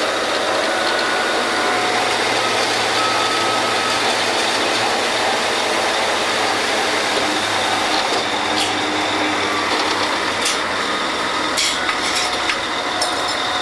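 Drilling rig machinery running steadily while a joint of drill pipe is run in and connected, with several sharp metal clanks from the pipe-handling in the second half.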